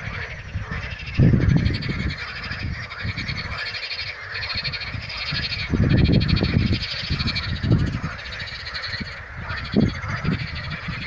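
Chorus of many frogs calling together from a reedy marsh, a continuous dense mass of rapid, rattling pulsed croaks. Bursts of low rumble come and go over it, loudest about a second in and around six seconds in.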